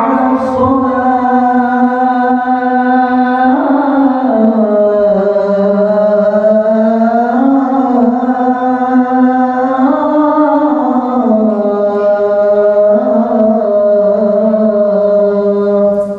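A man's voice chanting the Islamic call to prayer (adhan) into a handheld microphone. It is one long, drawn-out phrase with no break, holding notes and sliding up and down between them, and it stops right at the end.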